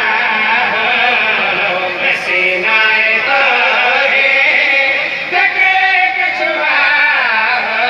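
A man's voice chanting a melodic religious recitation through a public-address sound system, with long, wavering held notes.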